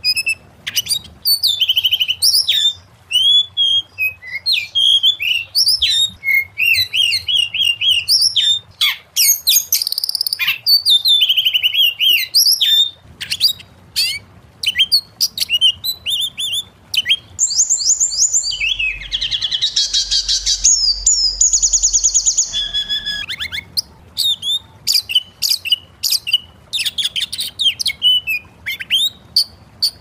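Oriental magpie-robin singing a fast, varied song of whistles, slurred notes and chirps. For several seconds past the middle it breaks into a harsh, buzzy rasp.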